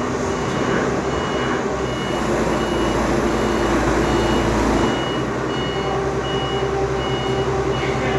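Vehicle reversing alarm beeping steadily, about four beeps every three seconds, over a running engine.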